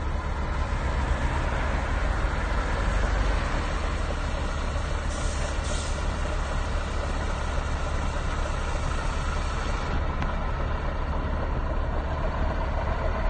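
1988 Scania 142 Torpedo's turbocharged V8 diesel running at low speed as the truck pulls slowly up close, a deep steady rumble, loudest in the first few seconds. A brief hiss of air about five seconds in, typical of the truck's air brakes.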